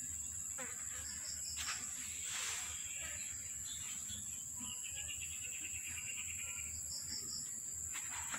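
Steady high-pitched drone of insects from outdoors, with a rapid trill lasting about two seconds a little past the middle and a couple of brief soft rustles around two seconds in.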